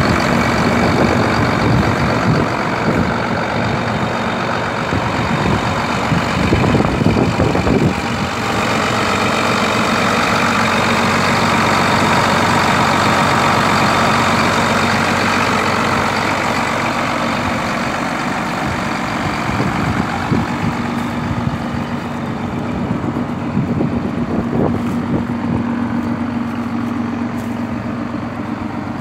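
John Deere 7800 tractor's six-cylinder diesel engine idling steadily, growing somewhat quieter toward the end.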